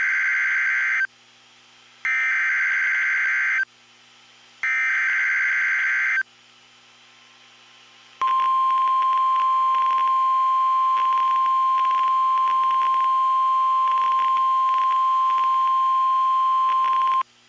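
Emergency Alert System SAME header data bursts: three harsh, buzzy digital bursts, each about a second and a half long and about a second apart. Then, after a short gap, the NOAA Weather Radio warning alarm tone follows, one steady high tone held for about nine seconds that stops abruptly. Together they signal the start of a new warning broadcast, here a severe thunderstorm warning.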